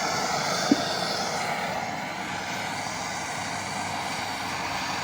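Gas brazing torch flame running with a steady hiss while it heats the brazed suction-line joint on an AC compressor to melt the braze. There is a short knock a little under a second in.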